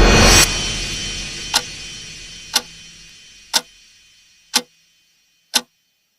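A loud rising whoosh cuts off about half a second in and its echo fades away. Over it, a clock-like tick sounds once a second, five times.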